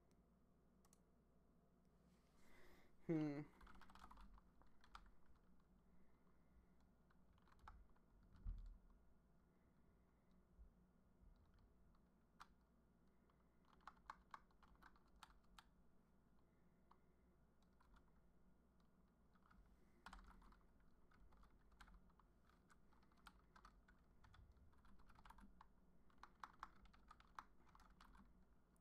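Faint typing on a computer keyboard: runs of key clicks with pauses between them. About three seconds in there is a short vocal sound falling in pitch, and a dull low thump comes a few seconds later.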